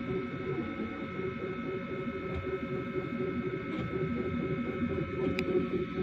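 3D printer running, its stepper motors sounding in quick, shifting tones over a steady high whine, with a sharp tick near the end.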